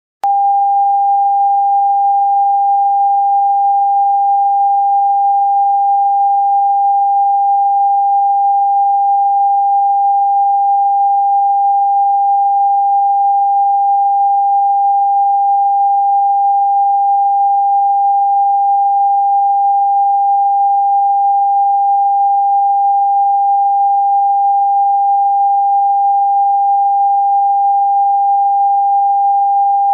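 Television test-card line-up tone: a single steady, unwavering pure tone sent with the colour bars when the channel is off the air, after programming has closed down. It starts abruptly just after the beginning, out of silence.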